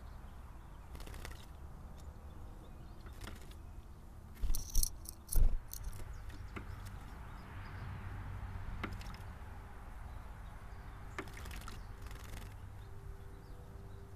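Tufted titmouse bathing in a shallow birdbath, two short bursts of wing-splashing about four and a half and five and a half seconds in. A few faint ticks sound over a low outdoor background.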